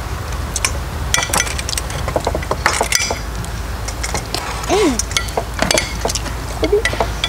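Metal serving utensils clinking and scraping against a stainless steel camp frying pan as vegetables are served out into bowls, a run of irregular sharp clinks, some ringing briefly.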